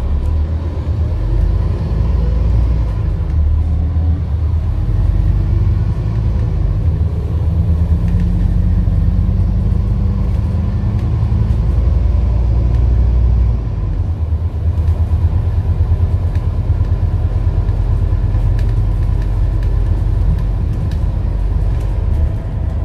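Scania N230UD double-decker bus engine running under way, a heavy low rumble whose note rises and falls with the driving. It drops back briefly about two-thirds of the way through.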